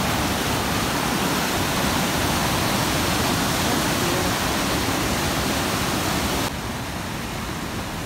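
Waterfall and whitewater rapids rushing over rock: a loud, steady, even rush of noise that suddenly drops to a lower level about six and a half seconds in.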